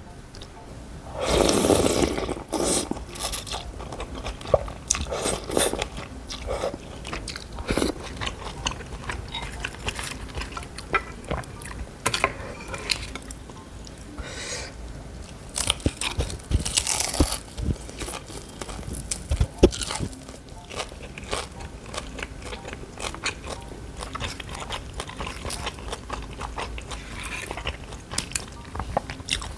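Close-miked eating: rice noodles slurped about a second in, then chewing, and crunchy bites into fried spring rolls around the middle, with short crackling chews throughout.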